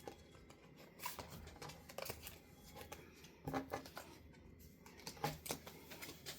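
Whack-a-Mole game tiles being handled and gathered up: scattered light clicks and rustles.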